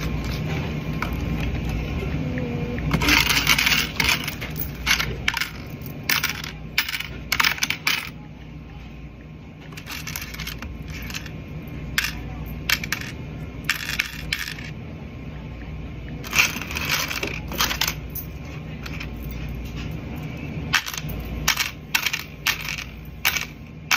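Cash register drawer being counted by hand: coins clinking and rattling in irregular clusters as they are picked through in the till's coin tray, with denser rattles about three seconds in and again past the middle. Paper bills rustle at the start.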